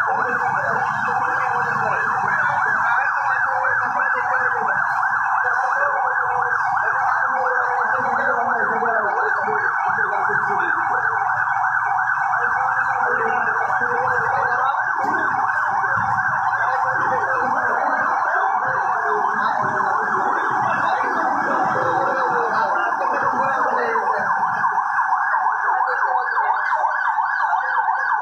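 Fire engine siren sounding continuously in a fast warble. A lower rumble runs underneath and dies away near the end.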